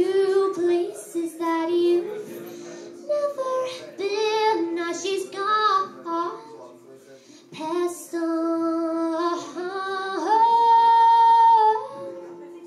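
Solo female voice singing a slow original song to acoustic guitar, rising to a long held high note near the end as the song closes.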